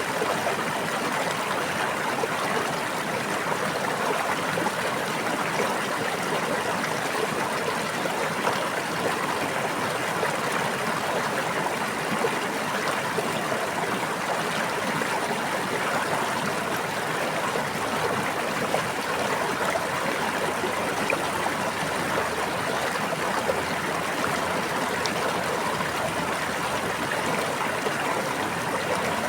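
Running water of a stream flowing steadily, an even rushing with no breaks or changes.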